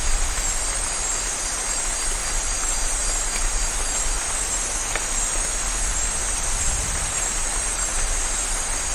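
Steady rain pouring, a dense even hiss with a constant low rumble underneath.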